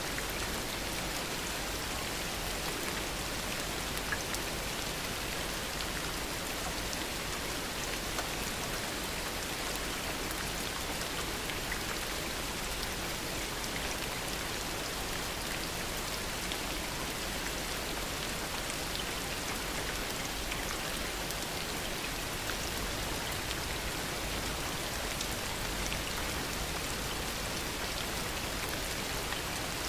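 Heavy rain falling steadily: an even hiss with scattered sharp drop ticks, unchanging throughout.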